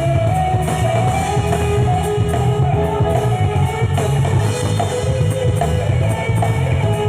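Live band playing a rock number at a sound check: a held, gliding melody line over a heavy low end and drums, steady throughout.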